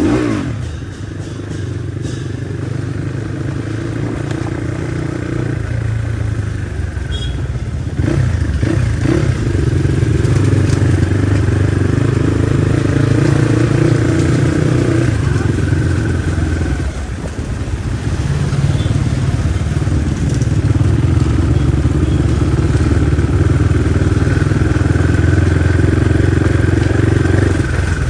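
Crossfire RM250 motorcycle engine running as it is ridden, the revs rising and falling with the throttle. It drops briefly about two-thirds of the way through.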